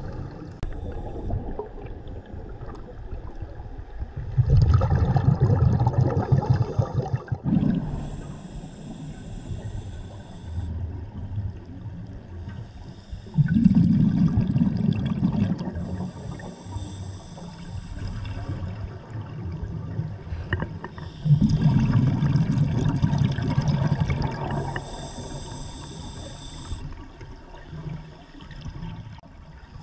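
Scuba diver breathing through a regulator underwater: three slow breaths about eight seconds apart, each a loud low rumble of exhaled bubbles followed by the hiss of the next inhale.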